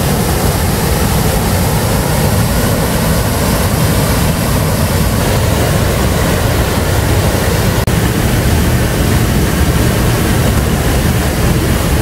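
Loud, steady roar of a waterfall in heavy flow, rushing water pouring over a rock ledge, deepest in the low end.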